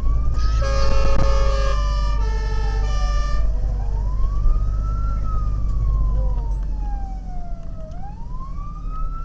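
Fire vehicle siren wailing, slowly rising and falling in pitch, over engine and road rumble inside the cab. Two horn blasts of about a second each sound in the first few seconds.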